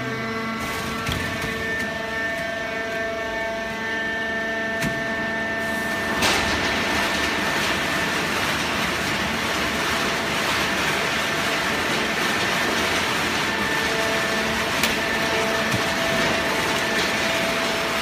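100-ton horizontal hydraulic waste-paper baler running, a steady whine with a louder steady rushing noise setting in about six seconds in.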